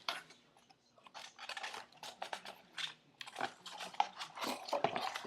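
Packaging being handled and opened by hand, crinkling and crackling in short irregular bursts that start about a second in.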